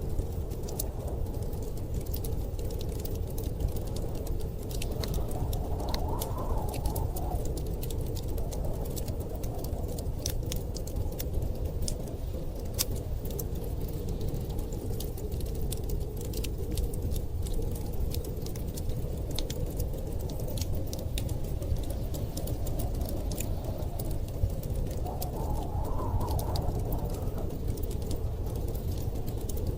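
Wood fire crackling with many small sharp pops over a steady low rumble of storm wind, the wind swelling into a howling gust twice, about six seconds in and near the end.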